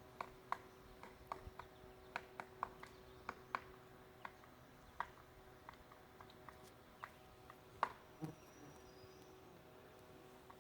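Pileated woodpecker pecking at wood: irregular, separate sharp taps, several in quick succession in the first few seconds, then more scattered, with one louder knock about three quarters of the way through.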